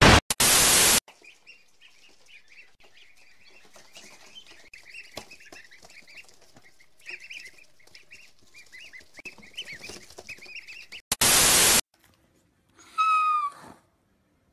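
A short burst of static hiss, then many faint, quick high squeaks and chirps from young animals for about ten seconds. Another burst of static follows, and near the end a dog gives a short, loud, high whine that falls in pitch.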